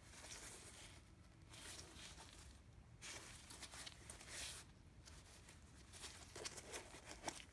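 Faint rustling and rubbing from gloved hands handling and turning a sneaker, in several bursts of about a second each, with a few light clicks near the end.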